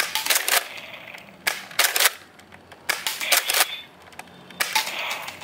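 Nerf Elite 2.0 Echo dart blaster being primed and fired again and again. Sharp plastic clacks and pops come in about four quick clusters, roughly a second and a half apart.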